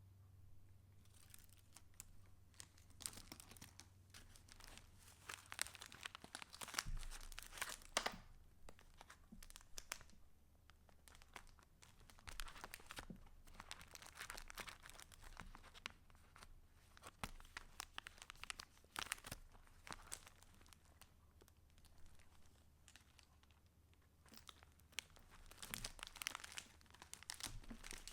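Paper pages of a handmade junk journal being turned and handled: soft rustling and crinkling in bursts every few seconds, with quieter pauses between.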